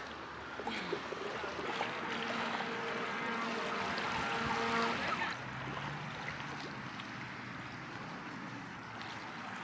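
River water flowing and lapping around a bamboo raft, a steady rush that is a little louder in the first half, with a faint steady hum in the background for a few seconds.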